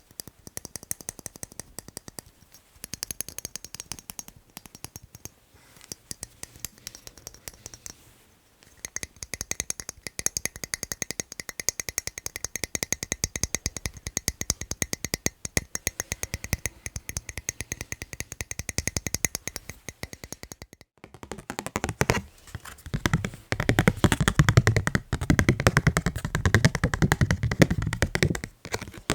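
Fast, continuous tapping on the items of a fan-club membership kit. Through the middle the taps carry a faint high ring. After a brief break near the end they turn heavier and deeper.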